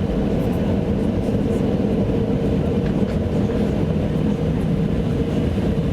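Airliner cabin noise before takeoff: a steady low rumble with a constant engine hum, and a few faint light ticks.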